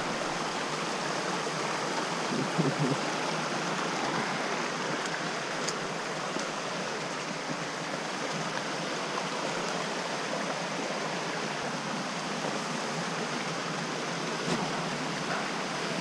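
Creek water rushing steadily over rocks in a canyon.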